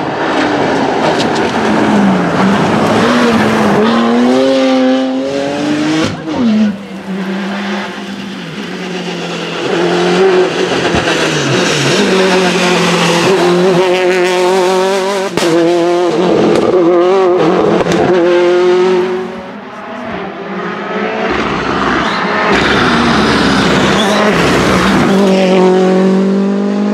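Rally cars passing one after another at full attack, engines revving high and dropping in pitch over and over through hard gear changes and lifts.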